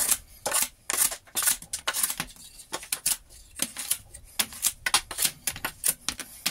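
Home-made curved (arc) steel blade, made from a demolition-hammer chisel, shaving a small piece of wood by hand. Quick repeated cuts, about three a second, each a short sharp scrape as a shaving comes off.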